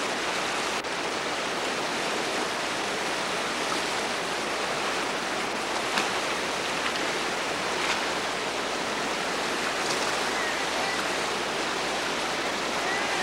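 Whitewater rapids on a large river: a steady, even rush of churning water.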